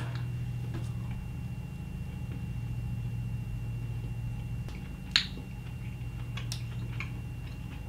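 A person chewing a piece of super sour gum with the mouth closed: a few faint mouth clicks and one sharper smack about five seconds in, over a steady low hum.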